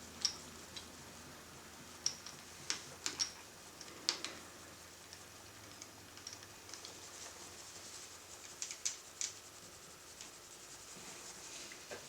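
Faint, scattered clicks of buttons being pressed on the front panel of a Tektronix MDO 3104 oscilloscope, a few in quick succession about two to four seconds in and another cluster near nine seconds, over a faint steady hum.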